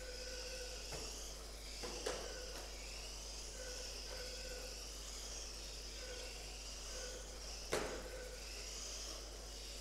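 Several radio-controlled racing cars lapping a carpet oval, their motors making a wavering high whine as they pass, with a light knock about two seconds in and a sharper one near eight seconds.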